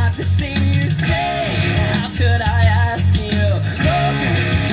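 A song with a sung melody over guitar and a steady, pulsing bass beat, played back through a Realistic two-way bookshelf speaker with a woofer and a small dome tweeter.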